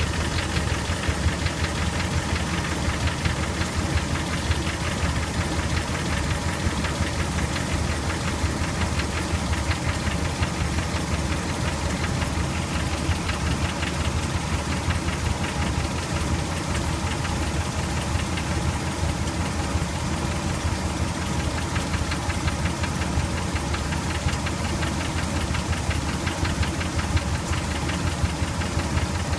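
2003 Dodge Ram 1500's 4.7-litre V8 idling steadily with a constant, rapid knocking. The owner suspects a broken exhaust manifold bolt on the passenger side, and has read that it could be bad lash adjusters or a bad timing chain.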